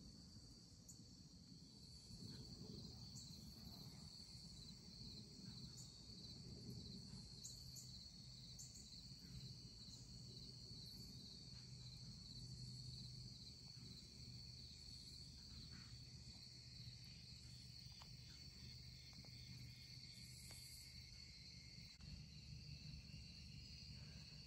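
Near silence: a faint, steady high-pitched chorus of evening insects, with a few faint ticks.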